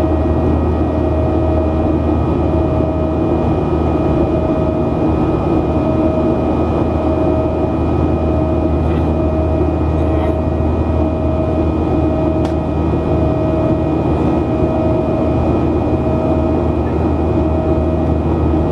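Steady engine drone of a Boeing 737-800's CFM56-7B turbofans heard inside the cabin over the wing during the climb after takeoff: a deep hum with a few steady whining tones, one of which swells and fades about once a second.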